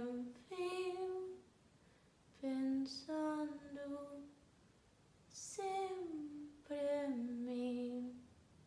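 A woman singing alone without accompaniment, in four short held phrases with pauses between them; the pitch slides down in the last two phrases.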